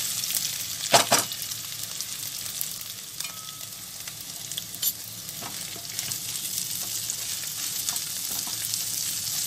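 Hot oil sizzling in a non-stick kadhai as mashed boiled potato is tipped onto a tempering of mustard seeds, coriander seeds and green chilli and stirred with a spatula. Two sharp knocks come about a second in, and another shortly before the midpoint.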